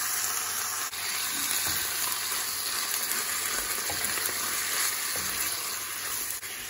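Raw chicken strips just added to a non-stick frying pan of coconut oil, garlic and onion, sizzling with a steady frying hiss while a wooden spatula stirs and pushes them around.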